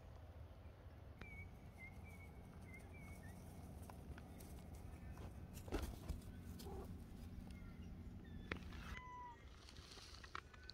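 Domestic cat giving a short falling meow about nine seconds in, with a few soft high chirps in the first few seconds and a couple of light knocks.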